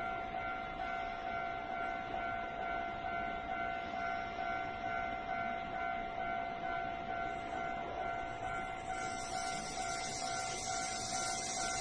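Railway level crossing warning bell sounding steadily, one held tone with a pulsing overtone, over a steady noise. About nine seconds in a loud high hiss joins in.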